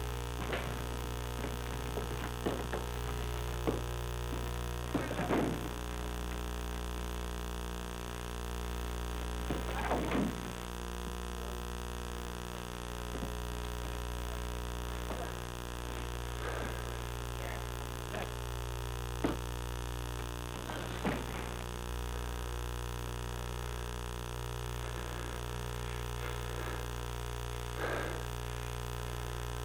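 A steady electrical hum from a poor VHS-to-disc transfer runs under everything. About a dozen short knocks and scuffles from the film's fist fight rise over it, the strongest about 5, 10, 21 and 28 seconds in.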